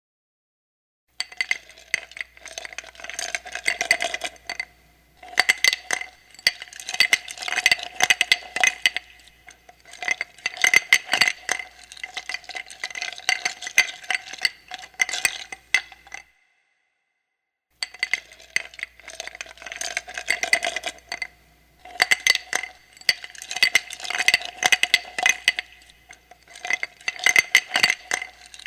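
Ice cubes stirred around in a glass: a quick, continuous run of clinks and rattles against the glass, which rings with each knock. It starts about a second in, and a brief full silence about two-thirds of the way through splits it into two passes.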